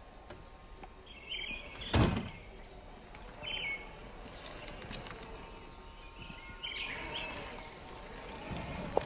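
Traxxas TRX-4 scale RC crawler working slowly over rocks: a sharp knock about two seconds in, then its electric drivetrain whir and tyres grinding on stone grow louder near the end. Songbirds chirp briefly a few times in the background.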